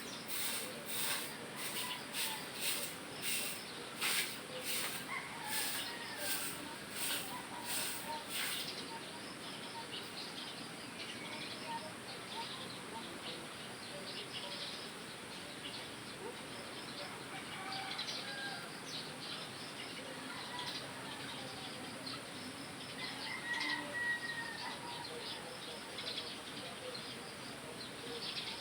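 Broom sweeping strokes at about two a second, which stop after about eight seconds. Irregular light rustling and clicking follow, with a few bird chirps.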